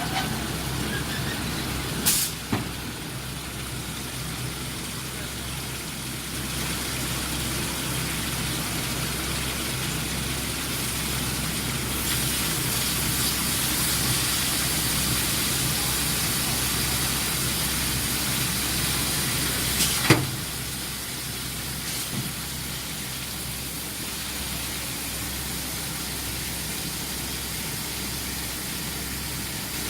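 Steady industrial noise of an induction quenching line for steel sucker rods: a low machine hum under a hiss that grows louder partway through, with sharp metallic clanks about two seconds in and again about two-thirds of the way through.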